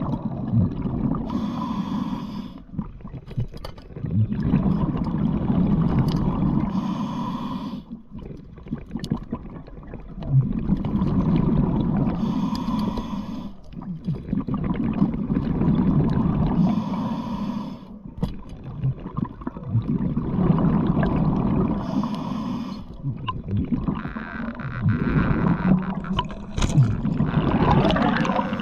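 Scuba diver breathing through a regulator underwater: a short hissing inhale followed by a longer bubbling exhale, about every five seconds, some five or six breaths.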